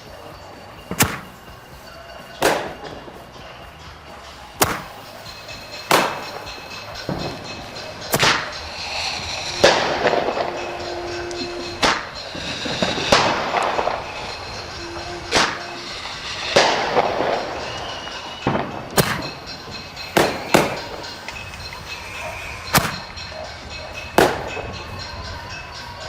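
A run of loud firework bangs at an uneven rhythm, about one every second or two. Among them are the booming titanium salute bursts of a Klasek Dum Bum 8-shot roman candle.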